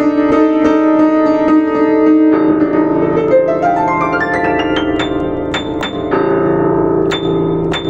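Yamaha U5 upright piano being played: repeated chords, then a run of notes rising up into the treble about three seconds in, ending on repeated high notes over a sustained lower chord.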